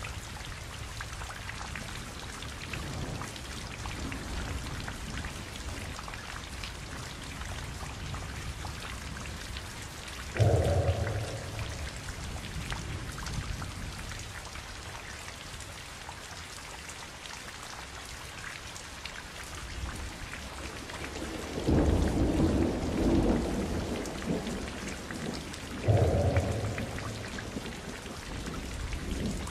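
Steady rain with thunder: three rumbles break through it, a sudden one about a third of the way in, a longer one about two-thirds in, and another sudden one shortly after.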